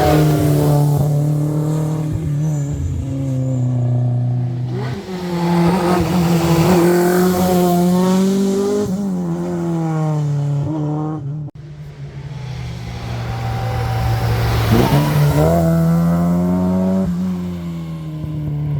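Rally car engines running hard on a stage, the pitch climbing and dropping again and again with revving and gear changes. The sound breaks off sharply about eleven and a half seconds in, then the engine note builds up again.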